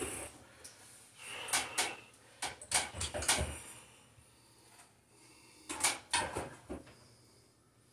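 Clicks and light knocks of the fan's plastic light-fixture parts being handled, in three short clusters: about one and a half, three and six seconds in.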